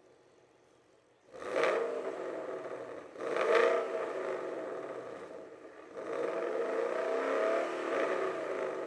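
Ford Mustang GT's 5.0-litre Coyote V8, with a replacement mid muffler and an X-pipe on the stock active exhaust, revved twice in quick blips about one and three seconds in. It is then held up for a couple of seconds before falling back.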